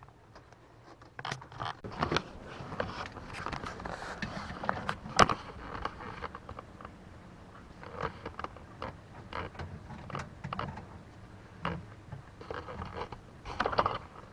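Irregular clicks, knocks and scrapes of hands working a grease gun's threaded nozzle fitting to unscrew it.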